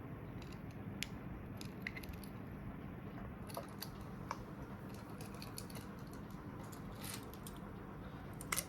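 Small keychains handled by hand: scattered light clicks and taps, more frequent in the second half, over a faint steady low hum.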